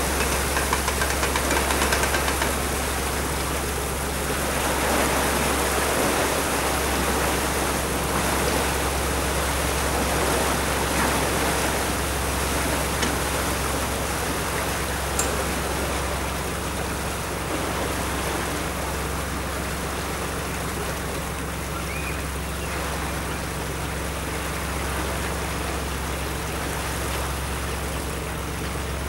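Narrowboat under way: a steady low engine hum under a constant rushing noise, with one small click about halfway through.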